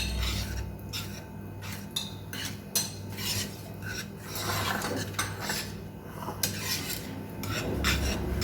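A spoon stirring thickened chocolate pudding in a saucepan, scraping against the pan in quick, irregular strokes.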